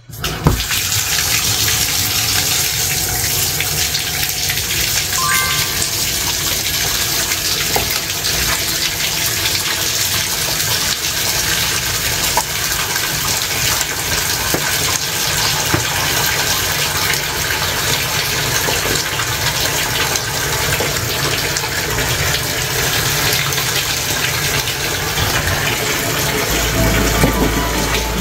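Bathtub faucet turned on and running, water pouring from the spout into the tub in a steady rush that starts right at the beginning. Music comes in near the end.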